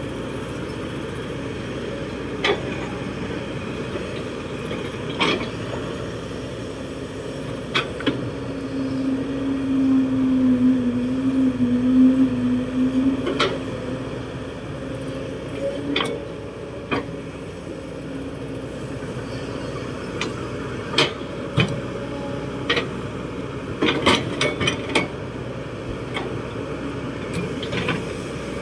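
Kobelco SK200-8 Super X excavator at work: its four-cylinder diesel engine runs steadily with a hydraulic hum that grows louder from about nine to thirteen seconds in, as the pump is put under load digging. Sharp metal clanks from the bucket and linkage come at irregular intervals, several in quick succession near the end.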